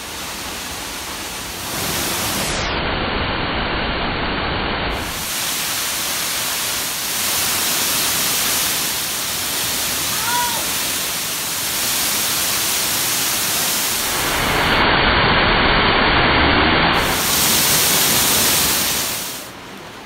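Rushing water of a waterfall: a steady, loud noise that jumps in level at several cuts between clips and drops away near the end.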